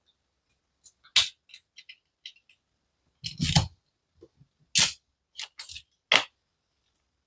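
Sharp clicks and knocks of small parts being worked off a diecast model car by hand: a handful of louder knocks with lighter ticks between, spread unevenly.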